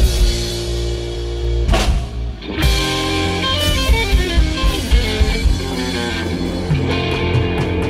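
Live blues trio playing a slow blues: electric guitar lead lines over bass and drums.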